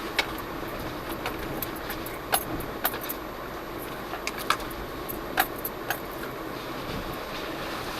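Jeep Cherokee Trailhawk driving over a rough off-road trail: a steady rumble of the vehicle under way, broken by irregular sharp clicks and rattles, thickest in the middle.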